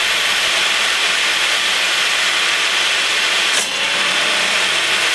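Table saw motor and blade running at full speed with a steady rushing noise. About three and a half seconds in, the blade bites a 1.5-inch dowel blank fed into a cannon tube over the blade and flings it out with one sharp crack: a deliberately staged kickback.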